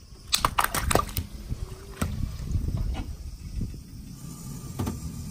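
A car tyre rolling slowly over something brittle and crushing it: a quick run of sharp cracks and crunches about half a second in, then a few scattered crunches over a low rumble.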